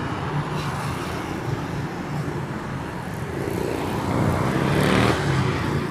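Road traffic on a multi-lane city street: cars and motorbikes going by in a steady wash of engine and tyre noise, with one vehicle passing louder near the end.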